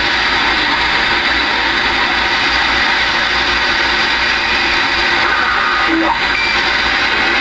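Galaxy DX-2547 CB radio receiving on the band through its speaker: a loud, steady hiss of static with faint wavering, garbled signals mixed in and a short tone about six seconds in.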